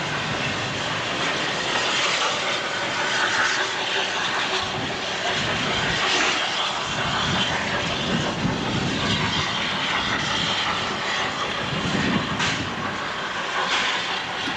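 Passenger train pulling away, a steady engine drone from its locomotive mixed with a steady hiss of noise.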